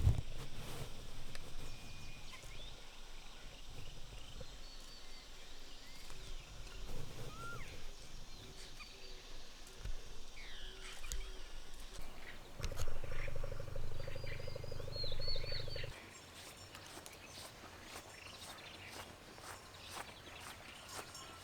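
Outdoor trail ambience: small birds chirping here and there, with scattered clicks like footsteps on a dirt path. A steady low buzzing drone runs for about three seconds past the middle, then stops suddenly.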